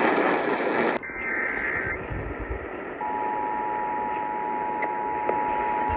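A loud radio hiss cuts off about a second in. A second-long burst of Emergency Alert System SAME header data tones follows. From about halfway through, the EAS attention signal starts and holds: a steady two-tone beep of 853 and 960 Hz.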